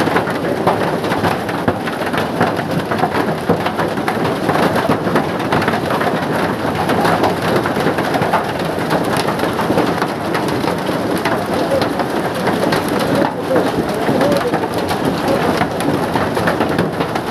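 Heavy rain pouring down steadily, a dense hiss with countless drops pattering on hard surfaces.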